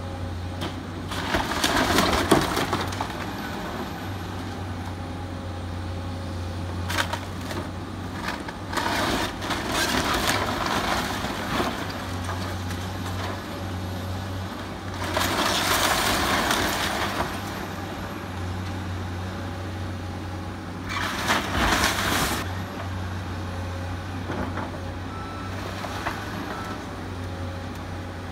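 Komatsu tracked excavator's diesel engine running steadily while its bucket tears into a wood-frame building, with about four bursts of wood cracking, crushing and debris falling.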